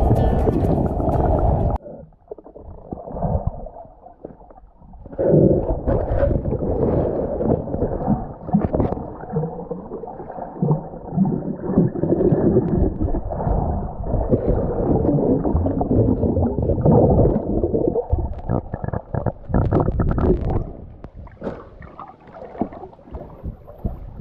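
Muffled, dull water noise as picked up by an underwater camera: uneven gurgling and sloshing with a few short knocks, nothing above the low and middle range. Background music cuts off about two seconds in.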